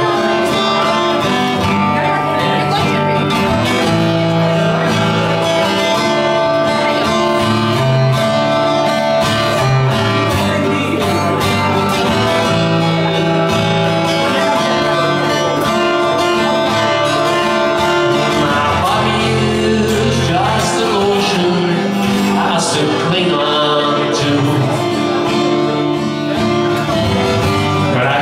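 Live acoustic performance of a song: guitar playing a steady instrumental passage between sung lines.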